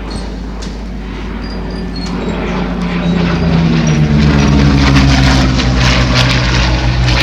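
Hawker Hurricane Mk I's Rolls-Royce Merlin V12 engine on a pass. It grows louder from about two seconds in, and its pitch falls as the aircraft goes by.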